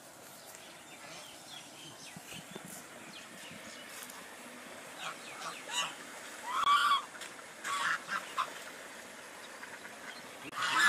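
Domestic geese honking: a few short honks in the second half, the loudest about two-thirds of the way through, and another loud honk near the end.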